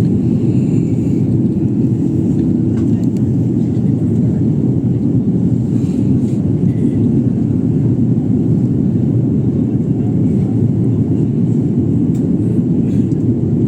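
Airliner cabin noise in flight: a steady, deep rush of engines and airflow heard from inside the passenger cabin, with a few faint clicks.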